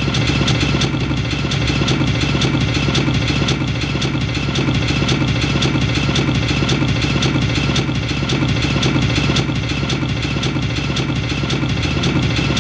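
A rapid, unbroken flurry of bare-fist punches landing on a freestanding torso punching dummy, many blows a second.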